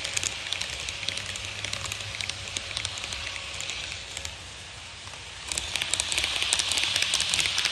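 HO-scale model trains running on the layout's track: a dense patter of small metal wheels clicking over rail joints with a steady hiss. It eases off as one train runs away, then grows suddenly louder about five and a half seconds in as another train comes past close by.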